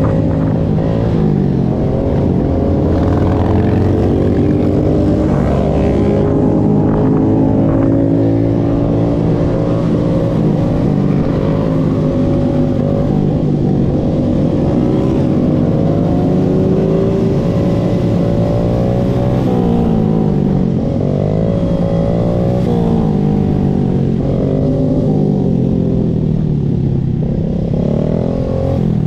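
Several motorcycle engines running together, their pitch rising and falling as they rev and shift over a steady low rumble.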